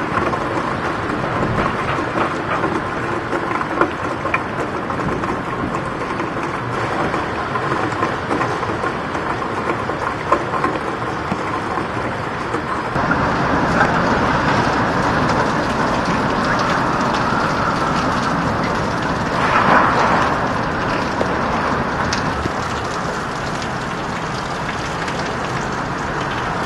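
Hurricane wind and heavy rain beating on pavement, a steady rushing noise. It grows louder about halfway through, with a stronger gust swelling up a few seconds later.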